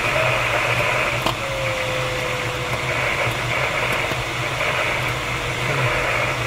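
Steady rush of airflow around a DG-1001 glider's canopy, heard inside the cockpit. A thin electronic variometer tone runs under it, sliding down in pitch about a second in after a single sharp click.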